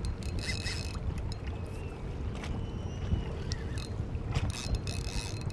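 Wind buffeting the microphone on a boat over open water, a steady low rumble with a few brief hissy gusts and small clicks, and a faint steady hum underneath.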